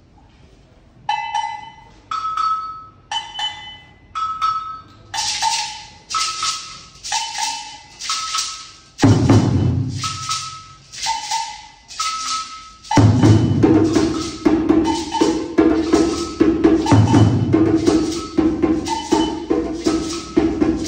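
Hand-percussion ensemble starting up: a slow beat of knocks about once a second, alternating a higher and a lower pitch, with maracas joining on each beat a few seconds in. A djembe comes in, and from about two-thirds of the way through the drum and shakers build into a dense, busy rhythm.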